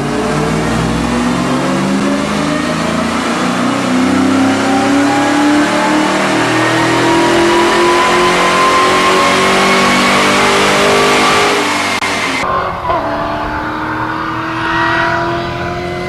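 Supercharged 5.0L V8 of a 1995 Mustang fitted with a Kenne Bell 2.2L twin-screw blower at 8 psi, revving up steadily, with the blower's whine climbing in pitch along with the engine. About twelve seconds in, the sound cuts to another recording of a car accelerating, its pitch rising again.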